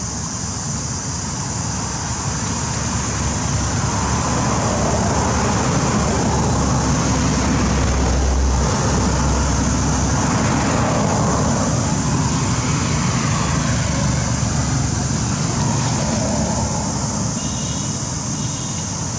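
A road vehicle passing close by, its rumble building, loudest near the middle, then fading away, over a steady high hiss.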